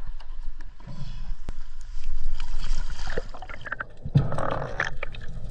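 A freediver splashes into the sea off the side of a boat. Then comes muffled underwater rushing and bubbling as the camera goes under, with scattered small crackles.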